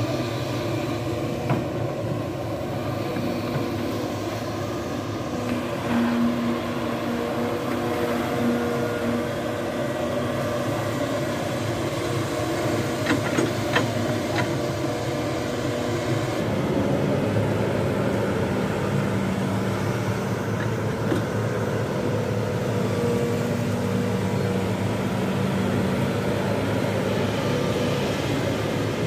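Hitachi ZX-210 long-reach excavator's diesel engine running steadily under working load, with a few short clicks about halfway through and a change in its note soon after.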